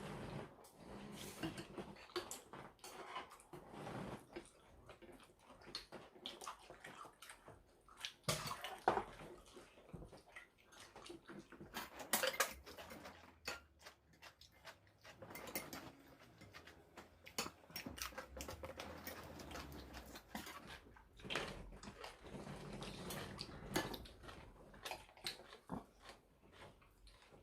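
Eating at the table: spoons and chopsticks click against bowls, with a few short bursts of liquid sound from the soup. The sounds are quiet and irregular.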